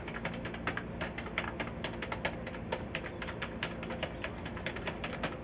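Rapid typing on an older membrane (non-mechanical) computer keyboard, several clicky keystrokes a second.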